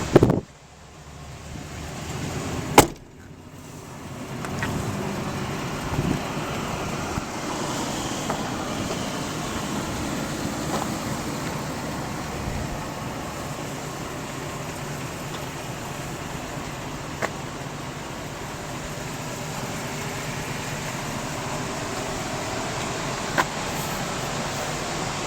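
A sharp knock at the start and another about three seconds in, then the steady running noise of a vehicle that builds over a second or so and holds.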